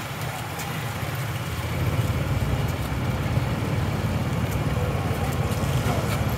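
Street traffic with motorcycle engines running close by, a steady low rumble that grows louder about two seconds in.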